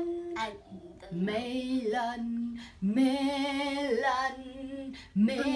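A child's voice singing a few long, held notes without clear words.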